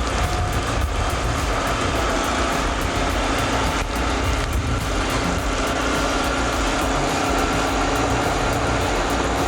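Heavy equipment engine running steadily under load, a dense continuous mechanical noise with a faint steady tone.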